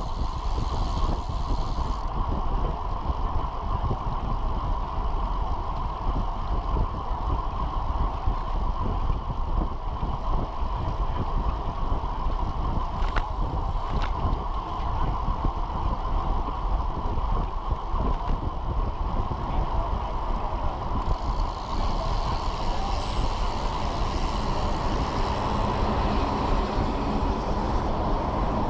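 Steady wind rumble and road noise on a bicycle-mounted action camera riding at speed. Near the end a truck engine comes in as a truck passes close by.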